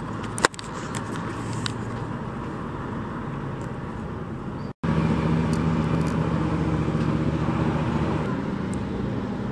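Street traffic noise: a steady hum of vehicles. A sharp click comes about half a second in. The sound drops out for an instant just before halfway, then returns with a louder, steady low engine drone.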